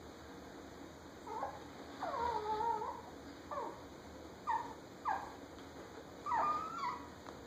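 Chihuahuas at play giving a string of about six short, high-pitched yips and whines. The longest, drawn-out whine comes about two seconds in and another near the end.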